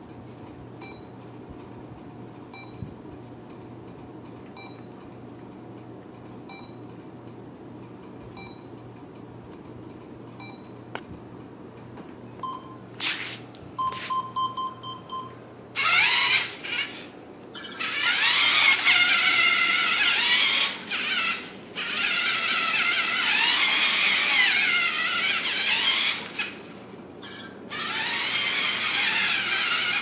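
LEGO Mindstorms NXT race car driving on a tile floor: its NXT servo motors and gear train whine loudly in long stretches with short pauses, the pitch wavering up and down as it speeds, turns and stops. Before it starts moving there are only faint short electronic beeps about every two seconds and a brief beep tone.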